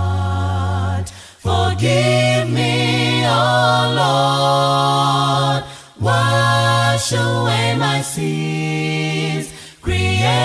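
Two voices singing a hymn a cappella in harmony, holding long notes with brief pauses between phrases.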